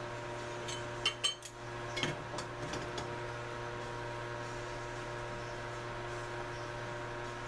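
Metal clicks and clinks as locking C-clamp pliers are released and the welded steel control-arm tabs are handled in the vise, a handful of sharp knocks in the first three seconds. A steady hum runs underneath.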